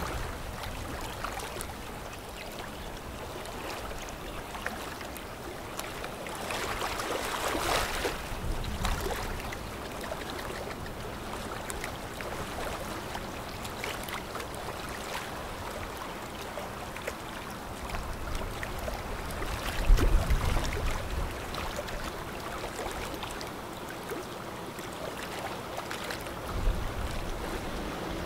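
Steady rush and splash of water from a fast-moving container ship's bow wave and wash. About two-thirds of the way in there is a louder low rumble.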